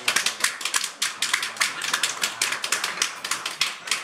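A small group of people clapping: dense, irregular sharp claps, several a second.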